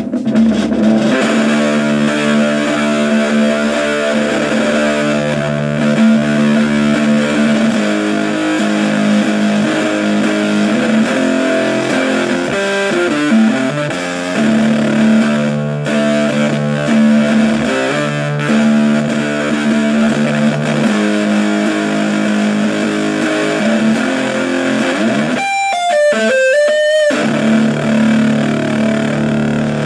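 Electric guitar played through a fuzz pedal into a homemade 9-volt ammo-can amplifier with its tone knob turned all the way up: heavily distorted chords ringing out, with a short run of higher notes near the end.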